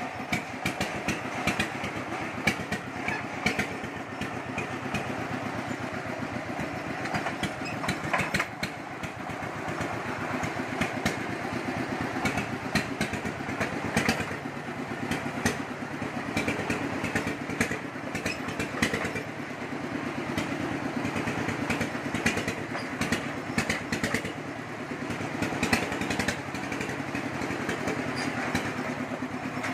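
Single-cylinder horizontal diesel engine of a công nông farm truck running steadily, a fast even beat with scattered clanks and clatter from the bare chassis as it drives slowly.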